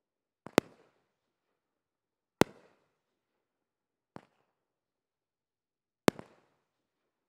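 Noise Complaint fireworks shots bursting in the air: three sharp, loud bangs, just after the start, about two and a half seconds in and about six seconds in, each with a short tail. Fainter pops come just before the first bang and about four seconds in.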